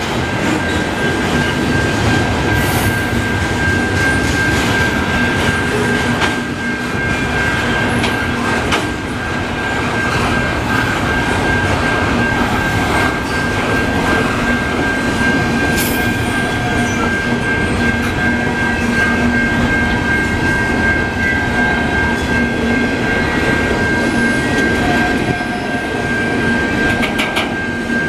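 Slow-moving freight train of double-stack container well cars rolling past, wheels clicking over the rails, with a steady high wheel squeal running over the rumble.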